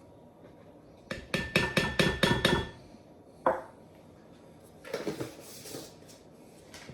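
A measuring cup knocked repeatedly against the rim of a mixing bowl to shake out cornstarch: a quick run of about a dozen sharp taps with a ringing note, then one more knock and a brief soft rustle of powder.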